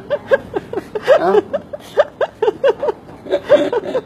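A woman laughing in runs of quick, high-pitched bursts, about four a second, with short breaks between runs.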